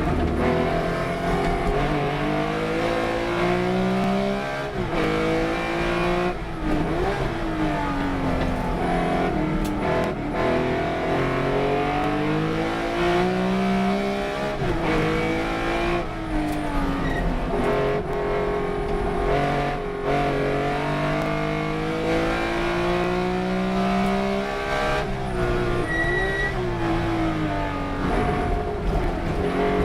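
Race car engine under hard acceleration: its pitch climbs steadily, then drops sharply at each gear change or braking point, many times over.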